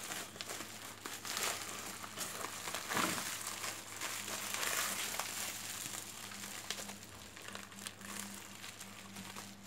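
Sack of grated cassava being folded, twisted and wrung by hand: irregular rustling and crinkling of the sack as the liquid is squeezed out of the pulp.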